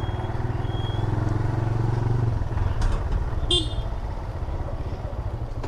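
TVS Raider 125's single-cylinder engine running on the move, the throttle easing off a little past two seconds in. A short high-pitched beep sounds just past halfway.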